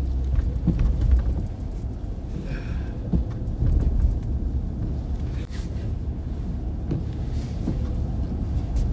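Car driving along at a steady pace: a continuous low rumble of engine and tyres on the road.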